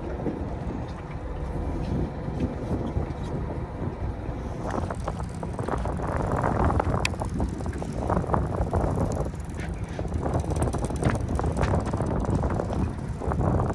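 Wind buffeting the microphone aboard a small fishing boat: a steady low rumble, with gusty, rushing noise coming and going from about five seconds in.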